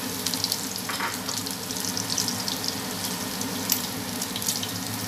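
Diced pork and freshly added chopped garlic frying in hot coconut oil in a frying pan: a steady sizzle with scattered crackles and pops.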